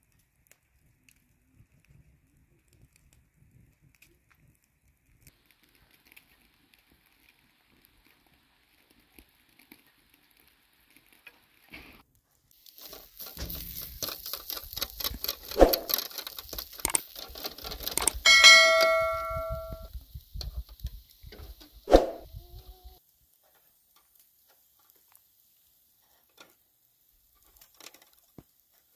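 Steel kebab skewers clinking against each other and the grill as they are turned over charcoal, over a hiss of sizzling meat. One strike, about two-thirds in, rings like a bell for over a second. Before that, only faint ticks.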